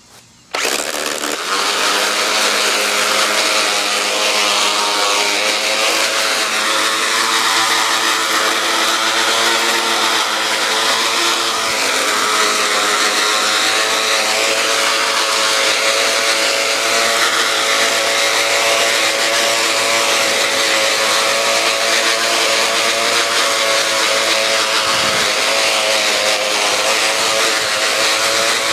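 Black & Decker electric string trimmer, mounted as a homemade mini mower, switching on about half a second in and then running steadily with its line spinning as it is pushed over grass.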